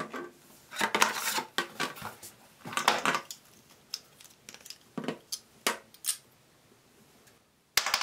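Plastic fill valve parts clicking and knocking as they are handled and set down on a porcelain toilet tank lid, in irregular small clatters, mostly in the first six seconds.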